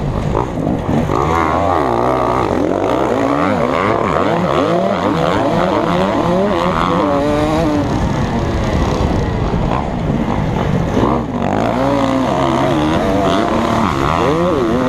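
KTM 250 SX two-stroke motocross engine revving hard, heard from a camera mounted on the bike. Its pitch climbs and falls again and again as the throttle is worked through the track, with a brief drop in level about eleven seconds in.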